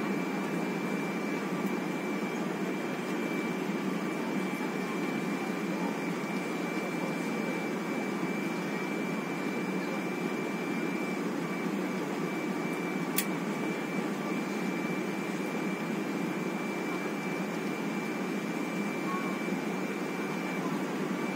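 Airliner cabin noise on final approach with the landing gear down: a steady rush of engines and airflow with a thin high whine over it. A single sharp click sounds about thirteen seconds in.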